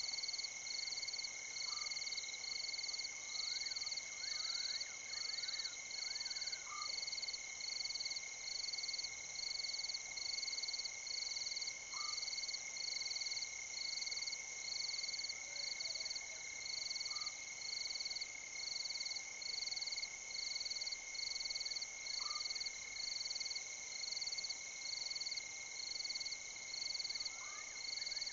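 Night chorus of frogs and insects: a steady high trill, a regular pulsing call about once a second, and a short upward chirp every five seconds or so.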